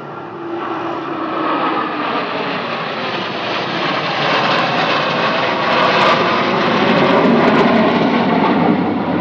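Jet noise from the Blue Angels' F/A-18 fighters flying over in a four-plane diamond formation, growing steadily louder and peaking near the end as they pass.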